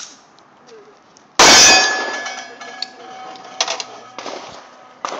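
.45 ACP pistol fired once, about a second and a half in, followed by a metallic ring that fades over about a second and a half, typical of a steel target being hit. A few light knocks follow.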